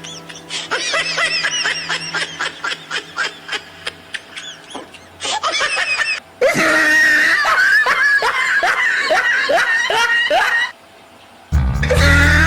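Laughter in quick repeated bursts, growing louder partway through. Near the end it drops briefly, then a loud passage with a heavy bass begins.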